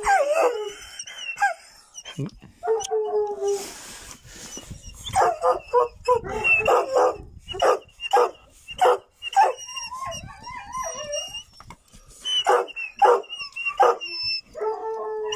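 Caged hunting hounds howling and barking excitedly at feeding time. Long howls come at the start and again about three seconds in, then runs of sharp barks with wavering whines between them.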